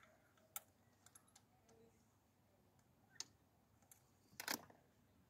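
A few sharp, scattered clicks and light knocks from hands handling parts and hoses in a car's engine bay, against near silence. The loudest cluster comes about four and a half seconds in.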